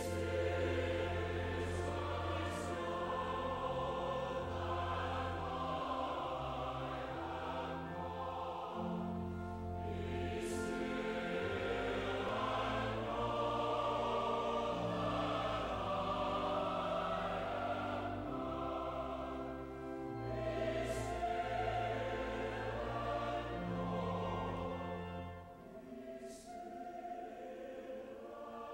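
Large mixed choir singing a slow hymn with organ accompaniment, holding long chords over sustained low bass notes. The music drops to a softer, quieter passage near the end.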